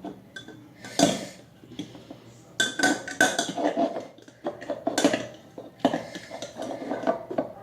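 A fork scraping and clinking against a bowl in irregular strokes, stirring slime mix made from clear glue.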